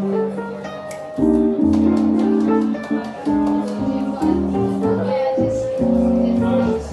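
Jazz duo of digital piano and upright double bass: plucked bass notes under piano chords and melody.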